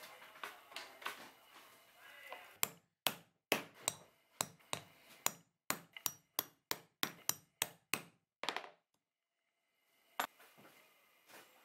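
A mallet striking a stitching chisel held upright on a leather strap tab over a poly cutting board. There are about fifteen sharp strikes at two to three a second, a pause, then one more strike near the end, as the stitching holes are punched through the leather.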